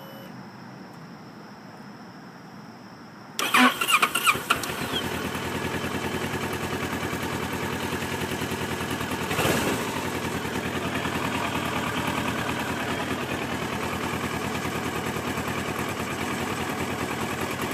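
Kawasaki Versys motorcycle engine starting a few seconds in: it catches with a short run of uneven coughs and sputters, then settles into a steady idle, with one brief louder burst partway through. The cough and hesitant start are a starting fault that persists after a new battery and an oil change, and the owner says it is getting worse.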